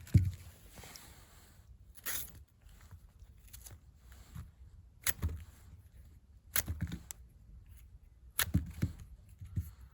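Bananas being forced through a meat grinder: about six irregular wet squelches and clunks a second or so apart, with no steady motor hum between them.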